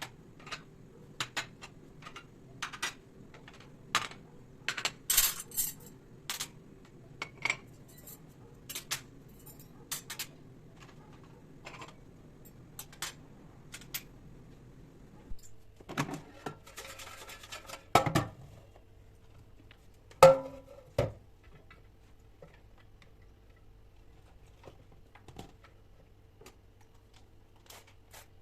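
Kitchen handling sounds: dishes and utensils clinking and knocking, many short sharp taps, with a louder knock about 18 s and 20 s in. A low steady hum runs underneath and stops about halfway through.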